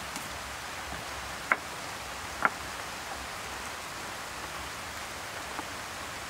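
Two short sharp snaps, about a second apart, as green bananas are cut and broken off the bunch with a knife, over a steady hiss of outdoor background noise.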